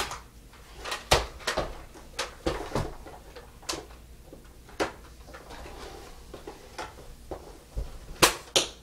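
A scattered series of sharp knocks and clicks, about a dozen at uneven intervals, the loudest one at the very start and two close together near the end.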